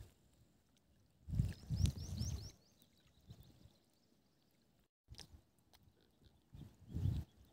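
Faint outdoor background broken by two short low gusts of wind buffeting the microphone. A quick run of four or five high, rising bird chirps comes with the first gust, about a second and a half in.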